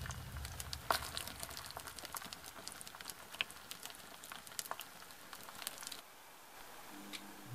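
Small open fire of burning flowers and candle offerings crackling with scattered sharp pops, thinning out near the end.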